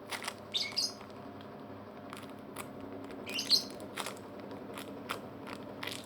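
A bird chirping in two short bursts about three seconds apart, the second louder, over a steady low background hum and scattered light clicks.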